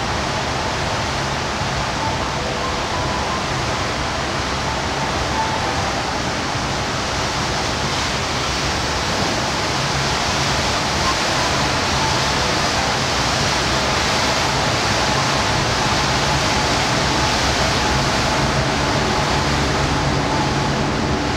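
Small passenger boat under way: a steady rush of water and wind with a low engine hum beneath, growing a little louder about halfway through.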